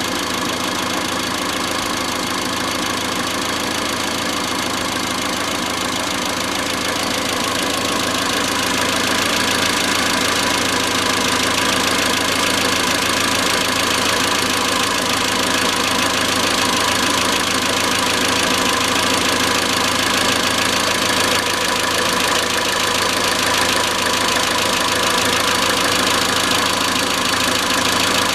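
Iran Khodro Samand's 1.6-litre 16-valve TU5JP4 four-cylinder engine running steadily at idle with a fast, even metallic knocking. The uploader links the knock to the hydraulic valve lifters. The sound grows slightly louder about a third of the way through.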